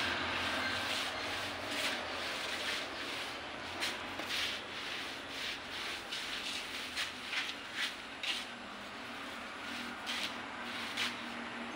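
Paint roller rubbing over a wall as primer is rolled on: a run of short scraping strokes over a steady background hiss.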